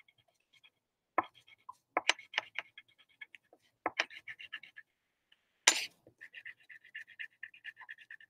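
Black wax crayon drawing on paper in quick back-and-forth strokes, rasping in rapid runs of small ticks, broken by a few louder single scrapes.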